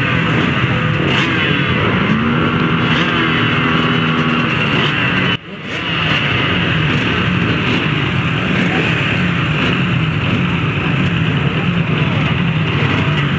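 A pack of off-road motorcycles idling and revving together at a race start line, with one bike holding a steady rev for a couple of seconds. The sound drops out briefly about five seconds in.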